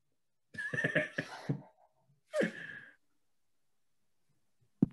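A person's breathy sighing sounds, twice, then a single sharp click near the end.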